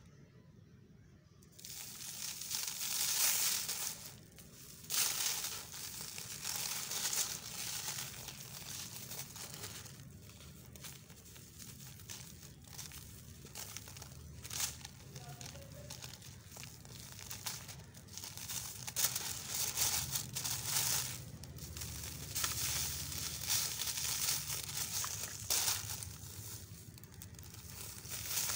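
Dry, grainy sand-cement lumps crumbled between bare fingers, the grains sifting and crackling onto crinkly paper and into a plastic basin, with the paper crinkling as it is handled. It starts after a quiet second or so, then goes on as an irregular run of dry crackles and rustling.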